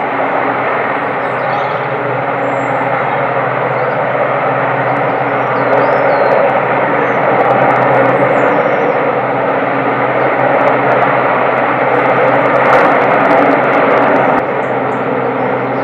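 RAF search-and-rescue helicopter running steadily, a loud continuous rotor and engine noise over a low hum, growing slightly louder about six seconds in and easing a little near the end.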